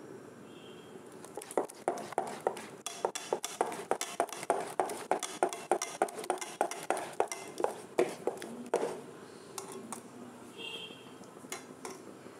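Spoon beating masoor dal batter in a bowl, clacking against the side about three to four times a second; the beating stops about nine seconds in.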